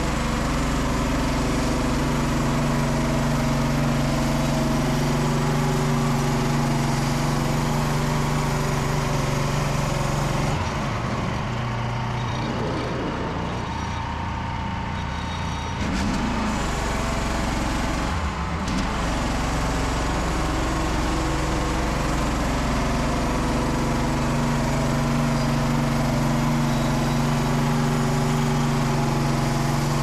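Frontier OS27 bandsaw mill's small petrol engine running steadily under load while the band blade cuts along a spruce log. The sound goes quieter and thinner for several seconds midway, then comes back to full.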